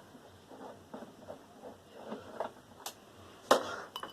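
Hand tools and parts handled on a desktop computer tower's metal case: scattered light clicks and knocks, with a sharper knock about three and a half seconds in.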